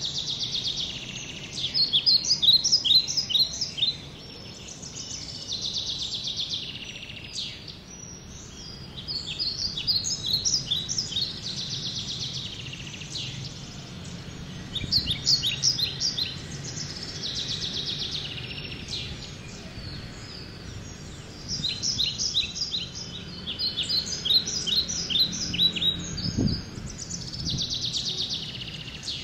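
Birds singing: the same phrase repeated every few seconds, a buzzy trill followed by a quick run of short chirps, over a faint steady background.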